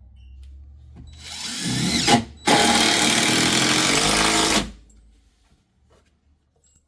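Handheld electric power tool running in two bursts over a low steady hum: it spins up about a second in and stops briefly, then runs steadily for about two seconds before winding down.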